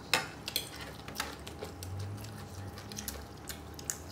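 Metal fork and spoon clinking and scraping against a dinner plate in a few sparse, light clicks, the sharpest near the start.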